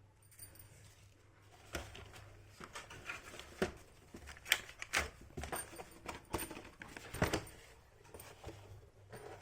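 Small plastic toy pieces and packaging being handled: irregular clicks, taps and rustles, with several sharper clicks in the middle of the stretch.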